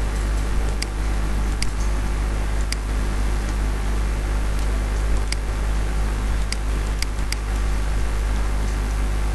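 Steady hum and hiss of a computer fan, with short, sharp mouse clicks about every second or so, several close together near the end.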